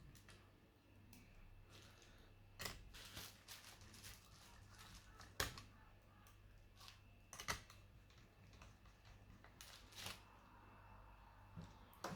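Scattered light clicks and taps of small hardware being handled, irregular and spaced a second or more apart, over a faint steady hum.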